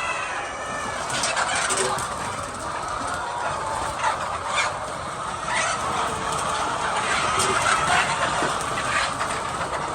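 A flock of chickens clucking and calling, many short calls overlapping over a steady background noise.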